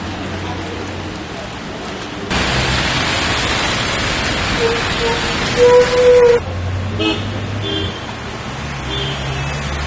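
Rain hissing on a street, then the louder spray of tyres on a wet road with traffic going by. A vehicle horn sounds, short at first and then held for about a second, near the middle. Afterwards a lower traffic rumble continues.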